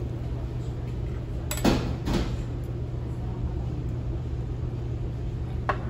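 Steady low hum of the dining room, with two sharp clinks of tableware close together about two seconds in and another short sharp sound near the end.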